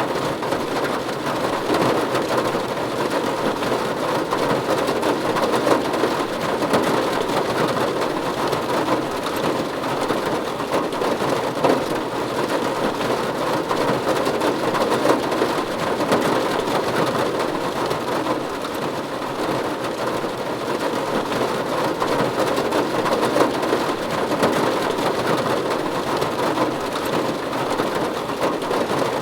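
Steady rain falling on a roof: a dense, even patter of drops with no break or change.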